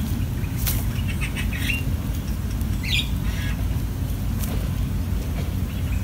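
Bulbul nestlings giving short, high begging chirps in small clusters, over a steady low rumble.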